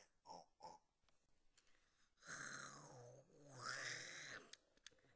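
Animal grunts: two short snorts, then two long, low grunts of about a second each, starting about two seconds in.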